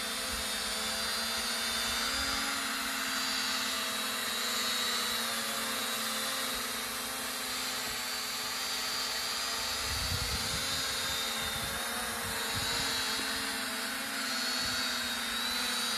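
Z908 Pro mini quadcopter drone in flight close by, its propellers making a steady whine of several pitches that waver slightly as it turns and shifts. A few brief low rumbles come about ten seconds in.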